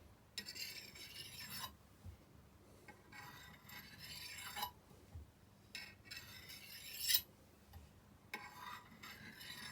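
Kukri knife blade drawn lightly along a ceramic sharpening rod, alternating sides: four long scraping strokes, each a second or more, with short pauses between.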